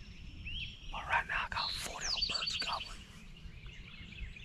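Wild turkey gobbler gobbling, a short rattling call about a second in. Songbirds chirp around it, one with a falling note that runs into a quick string of about six high repeated notes.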